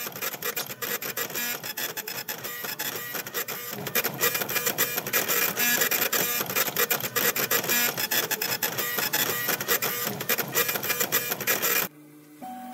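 Prusa MK3S 3D printer printing, its stepper motors whining in short steady tones that keep changing pitch as the print head moves, over fast fine ticking. About a second before the end it drops sharply to a much quieter hum of a few steady tones.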